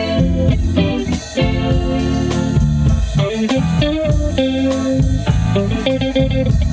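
Band playing during a sound check: electric guitar and bass guitar lines over a steady beat.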